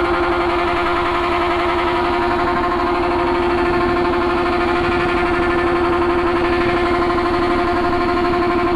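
Sport motorcycle engine held at high revs, a loud, steady, unchanging note with a slight flutter, as the rider holds the throttle open with the bike standing still.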